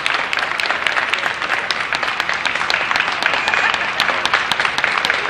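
Crowd applauding steadily: dense, continuous clapping from many hands.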